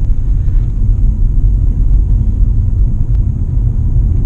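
Steady low road rumble inside the cabin of a Mitsubishi Outlander PHEV as it drives towing a loaded trailer.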